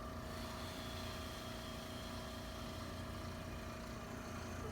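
Steady low mechanical hum with a couple of faint held tones, unchanging throughout; no distinct crack or click stands out.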